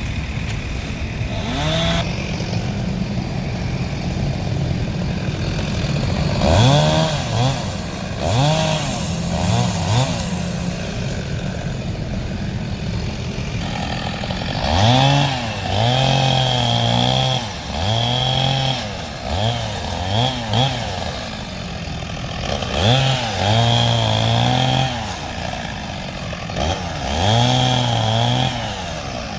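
Two-stroke chainsaw idling and revved up again and again, each rev rising quickly, held for a second or two, then dropping back to idle.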